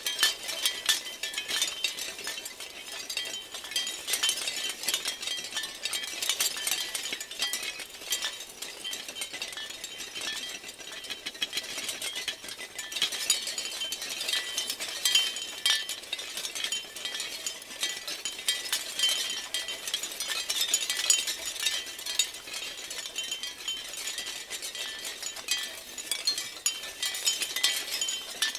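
Shell wind chimes clinking and rattling against one another continuously, a dense patter of small bright clicks with faint ringing, swelling and easing as they sway.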